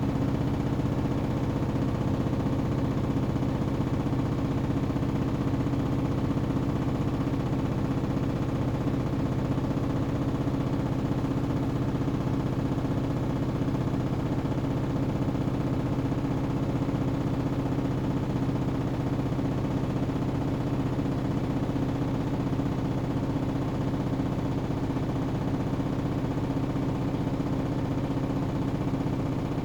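Hoover Axi 9 kg washing machine's drum spinning at a steady high speed, a constant hum that holds one pitch throughout.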